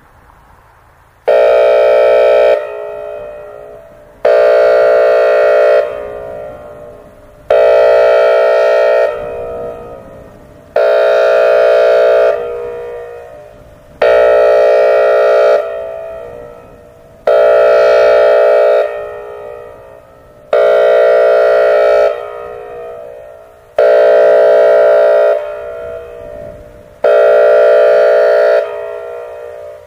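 Whelen WPS-2910 electronic outdoor warning siren sounding its air horn signal: loud horn blasts about a second long, repeated about every three seconds, each trailing off in a fading echo. Nine blasts, the first about a second in. On this system the air horn is the all-clear signal, sounded here as part of a test.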